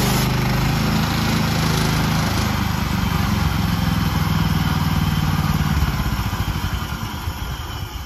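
Woodland Mills HM130MAX portable bandsaw mill running its gas engine under load while its band blade cuts through an ash log. The steady engine note falls and wavers from about six seconds in, dropping away near the end.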